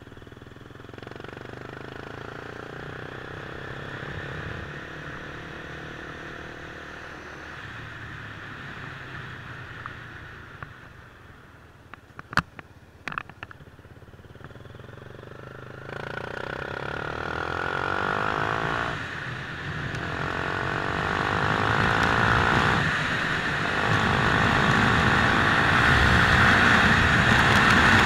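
Motorcycle engine running while riding, with wind noise on the microphone. About halfway through it drops to a quiet idle with a few sharp clicks, then accelerates, the engine and wind growing steadily louder toward the end.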